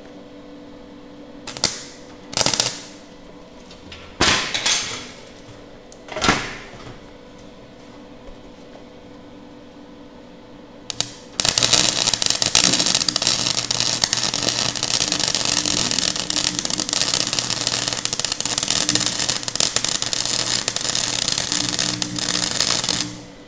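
Gasless flux-core MIG welding with a Nagano MIG 130 set to minimum 1 and wire speed 4. After a few short knocks over a steady hum, the arc strikes about halfway through and crackles continuously for around twelve seconds, then stops suddenly near the end.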